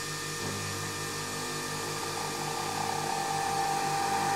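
Nespresso Vertuo coffee machine running its brew cycle: a steady, pulsing mechanical hum, with a higher whine that comes in and grows stronger about two seconds in.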